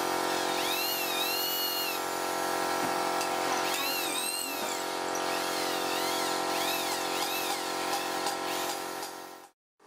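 Corded electric drill running steadily as it bores into the end of a wooden handle through its metal ferrule, with high squeals that rise and fall over the motor's whine. The sound cuts off abruptly near the end.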